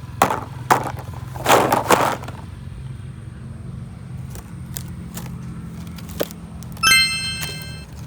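A few sharp clicks and a short scraping rustle of objects being handled, then a bright bell-like chime about seven seconds in, over a steady low hum.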